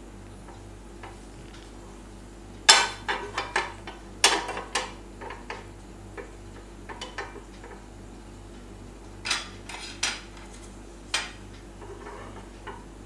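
Small non-stick frying pan on a gas stove, knocking and clattering as a silicone spatula works the oil around it and the pan is shifted on the burner grate: several clusters of sharp knocks.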